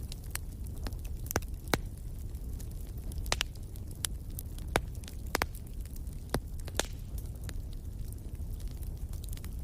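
Wood fire burning, with sharp irregular pops and crackles from the burning logs over a steady low rumble of the flames.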